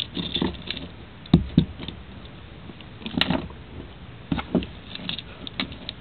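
Antique iron handcuffs, a chain and a padlock being handled: scattered metal clinks, light rattles and knocks, the clearest about a second and a half in and about three seconds in.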